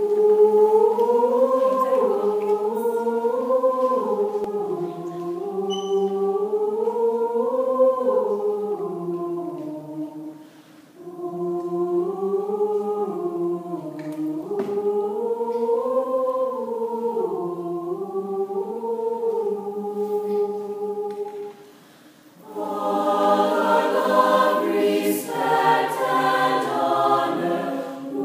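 High school choir singing. At first it is a single melodic line in phrases, with two short breaks. After about 22 seconds it opens into fuller harmony.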